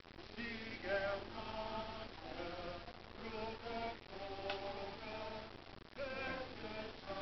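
Men's and women's voices singing a hymn together, held notes in slow phrases, with a short break between phrases just before six seconds in. A single sharp click about four and a half seconds in.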